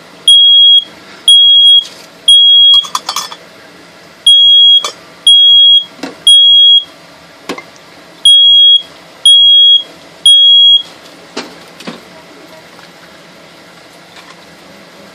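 Smoke alarm sounding in its three-beep pattern: three groups of three loud, steady, high-pitched beeps about half a second each, with a pause between groups. It was set off by the smoke and flame from melting plastic filament rivets over an open flame.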